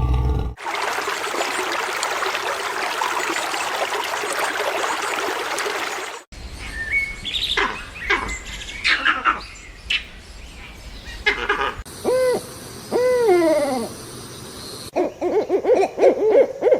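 Animal calls from several short clips in turn. First comes a steady hiss lasting about five seconds, then short scattered chirps and calls. Then there are two drawn-out calls that rise and fall in pitch, and near the end a quick flurry of similar calls.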